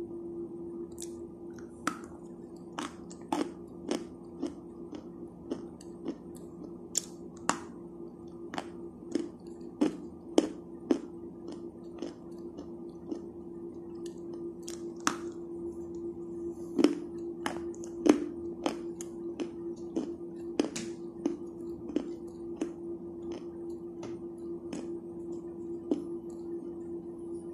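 Sticks of chalk bitten and chewed: a long, irregular run of sharp crunches, roughly one or two a second, over a steady low droning music bed.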